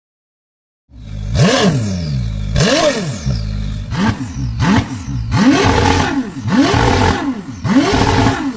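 A vehicle engine revved hard about seven times in quick succession, starting about a second in, the pitch climbing and dropping back on each rev.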